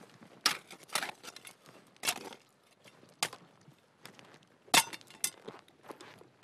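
Boot footsteps crunching on dry, stony ground, an irregular series of sharp steps with light metallic clinks of carried gear; the loudest step comes a little under five seconds in.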